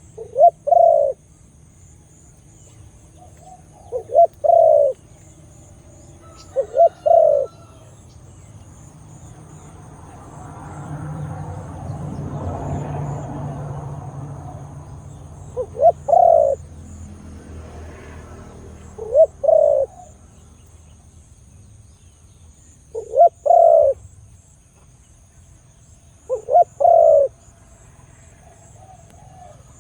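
A Khmer dove cooing: seven short phrases a few seconds apart, each a quick note or two followed by a longer coo. A low rumble swells and fades in the long gap between the third and fourth phrases.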